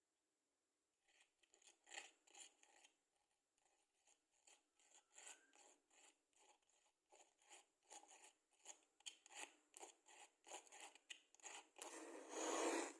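Wooden matchsticks rubbed and scratched in a run of short scratchy strokes, about two a second. Near the end comes a louder, longer rasp lasting about a second.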